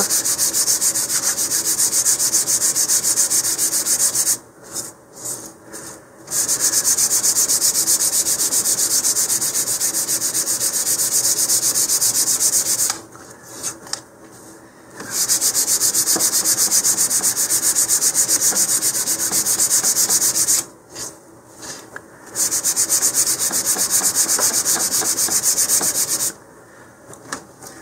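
150-grit sandpaper rubbed briskly back and forth over the flat faces of balsa fins still held in their sheet: a fast, steady scratching. It comes in four stretches with short pauses between.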